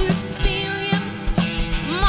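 Live blues-rock band playing: electric guitar and bass holding notes over a drum beat of about two hits a second.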